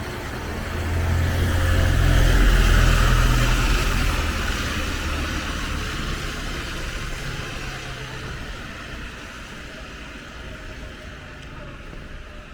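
A motor vehicle driving past on a wet road: engine rumble and tyre hiss swell to a peak about two to three seconds in, then fade away.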